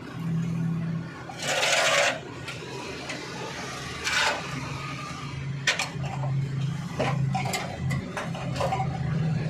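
Hand work on metal parts: a loud half-second scrape about one and a half seconds in, a shorter one near four seconds, and scattered sharp clicks and taps later, over a steady low hum.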